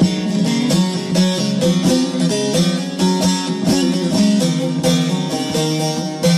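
Instrumental folk music: a plucked string instrument plays a quick run of notes over steady low held notes, with no singing.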